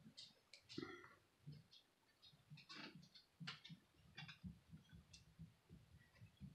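Near silence with faint, scattered clicks and light taps from handling a plastic practice hand and an acrylic nail brush.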